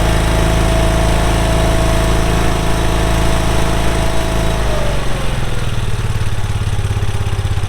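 Barreto 30SG stump grinder's 31 hp Briggs & Stratton gas engine running at high speed with a steady whine, then throttled down a little past halfway, the pitch falling as it settles to a slow idle.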